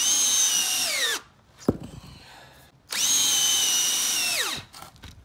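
Power drill driving screws into a thick glued-up wooden block: two runs of high motor whine, the second longer, each dropping in pitch as the trigger is let off, with a sharp click between them.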